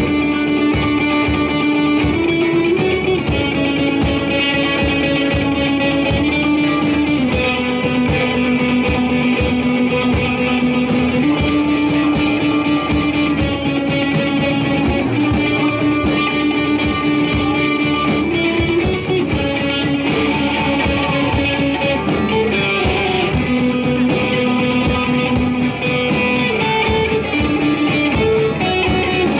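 Live rock band music: electric guitars playing over drums, with a melody of held notes that changes pitch every second or two.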